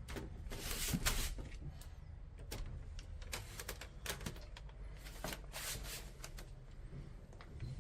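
A series of short clicks and rustling handling noises, coming in bunches about a second in, around the middle and again about five to six seconds in, over a low steady hum.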